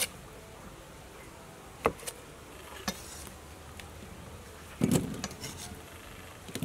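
Cleaver chopping meatballs in half on a thick wooden chopping board: single sharp knocks of the blade on the wood, then a rougher clatter about five seconds in as the halves are gathered with the blade. A steady insect buzz runs underneath.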